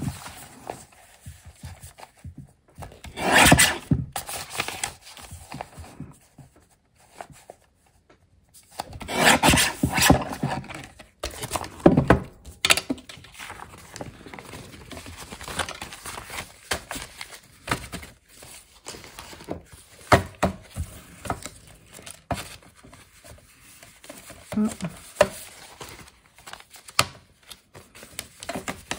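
Sheets of paper being handled and rubbed during paper crafting, with two longer rasping rub strokes early on and then scattered light taps and rustles of paper on the table.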